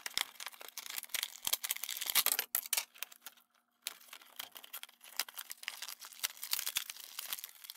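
Toy blister packaging being opened by hand: the plastic bubble and card backing crinkling and crackling in irregular bursts, with small plastic clicks, and a short pause about three seconds in.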